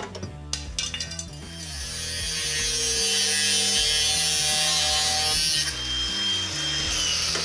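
Angle grinder with a cut-off disc cutting through the rusted sheet-steel plenum panel of a Ford XB Falcon ute: a few metal clinks, then a steady high whine and grinding hiss from about a second and a half in. The cut eases off near six seconds and picks up again at the end. Background music with a bass line plays underneath.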